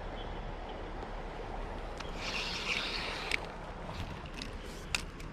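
Steady rush of creek water, with a short hiss about two seconds in and a few sharp clicks near the end from an ultralight spinning rod being cast and reeled.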